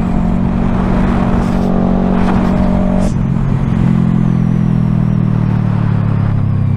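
Yamaha R3's parallel-twin engine running at low, steady revs through an M4 Street Slayer exhaust. Its note steps down slightly about three seconds in.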